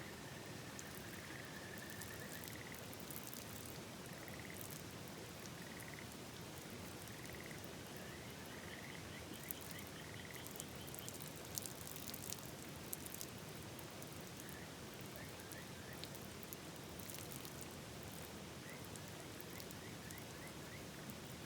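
Frogs calling in repeated trains of short, rapid notes, with a second, higher-pitched caller joining for a few seconds near the middle, over the steady rush of a river. A scatter of sharp ticks comes a little before the middle.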